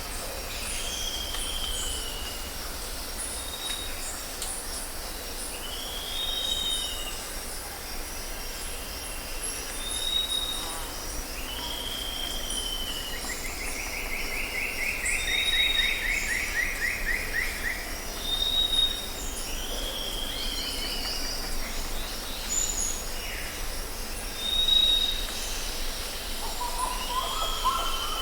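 Forest ambience: birds calling over and over, a short high whistle alternating with a down-slurred note every couple of seconds and a fast trill about halfway through, over a steady high insect buzz and a low rumble.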